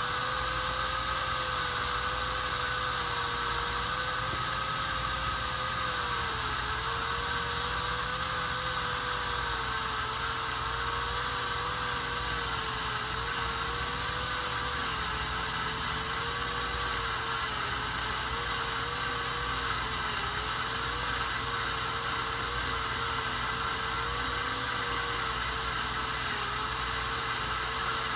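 Cordless drill boring slowly into a thick steel vehicle frame with a twist bit, its motor whining steadily. The pitch sags and recovers again and again as the bit bites under pressure.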